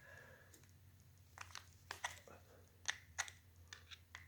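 Faint, irregular clicks and taps of a hand tool on metal as small fasteners on the ignition coil installation are snugged down.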